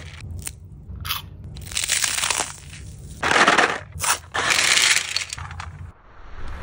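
About five short, crisp crunching and rustling noises as candy and a cardboard candy box are handled: airy freeze-dried sour gummy worms, then a Milk Duds box having its flap torn open. The loudest crunch comes a little past halfway.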